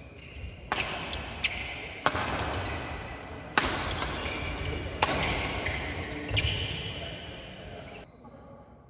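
Badminton rackets striking a shuttlecock in a doubles rally, about six sharp hits roughly a second and a half apart, each with an echo trailing after it in the large hall. The hits stop about eight seconds in as the rally ends.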